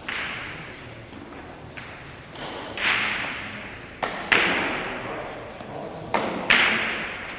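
Billiard balls and cue tip clicking on a carom table in a reverberant hall: a few sharp clicks, the loudest about four and six and a half seconds in, each followed by a ringing echo.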